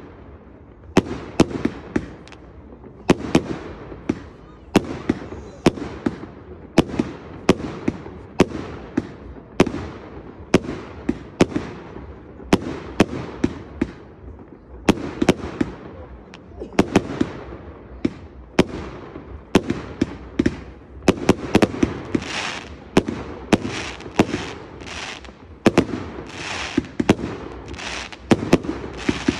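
Fireworks display: a steady run of aerial shell bursts, sharp bangs about one or two a second, each echoing out. In the second half, crackling glitter bursts join in after the bangs.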